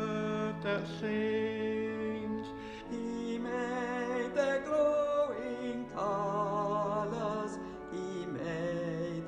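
Hymn music: held accompaniment chords under voices singing with vibrato, the notes changing every second or so.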